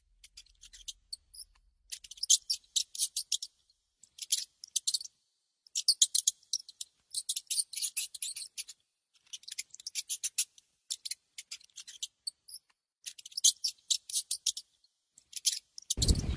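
Mouse on a plastic bucket trap: bursts of rapid, dry, high clicking and scratching, each lasting one to three seconds, with short silent gaps between.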